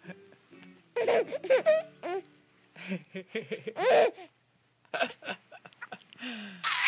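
Baby laughing in several separate bouts of giggles.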